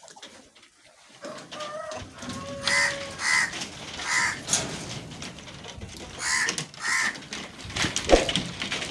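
Crows cawing: about six short harsh caws, mostly in pairs, over a busy background hubbub.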